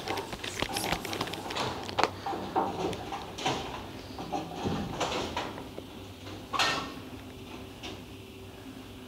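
Bowling alley clatter: a string of scattered knocks and clacks from balls and pins, busiest in the first few seconds, with one louder knock about two-thirds of the way through. After it only a faint steady hum is left.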